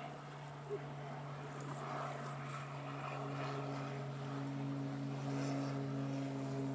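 An engine running with a steady hum, growing a little louder and fuller over the last few seconds as it draws nearer.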